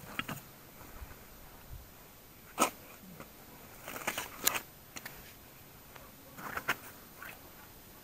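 Rustling and clicking from fishing gear being handled in a bag, a plastic bag crinkling among it, in short scattered bursts with one sharp click about two and a half seconds in.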